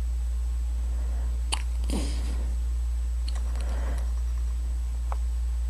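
A person hiccuping: sharp hiccups about a second and a half and five seconds in, with a fainter one between, and short voiced sounds after them, over a steady low hum.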